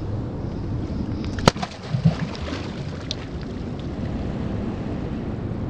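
Wind rumbling on the microphone over flowing river water, with a sharp knock about a second and a half in, then a few small splashes and knocks as a chinook salmon is let go in the shallows.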